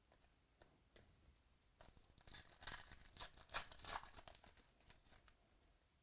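The foil wrapper of a 2018 Donruss Baseball card pack being torn open and crinkled in the hands. It is a run of dense crackling about two seconds in that lasts around three seconds.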